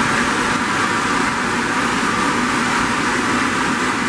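Steam locomotive Ernest S. Marsh No. 4 venting steam: a loud, steady hiss of escaping steam.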